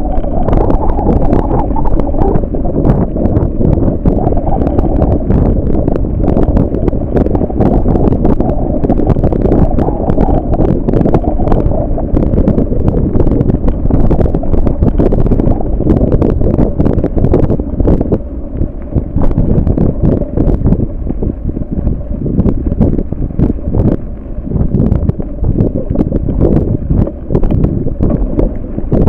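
Heavy wind buffeting the microphone, a dense low rumble with many small knocks and rattles all through. It eases a little about two-thirds of the way in.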